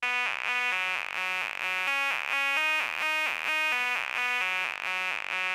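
Instrumental intro of an electronic music track: a repeating figure of short, bright pitched notes, several a second, with no vocals.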